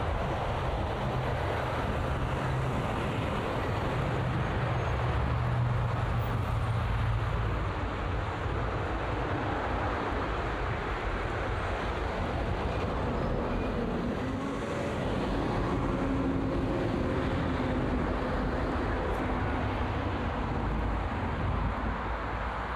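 Busy road traffic: a steady wash of engines and tyre noise, with a heavy vehicle's low engine hum strong for the first several seconds and another engine's steady drone through the middle.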